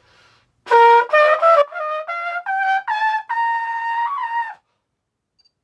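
Trumpet playing an ascending scale of about an octave, roughly eight separate notes stepping upward. The top note is held longest and sags slightly before it stops.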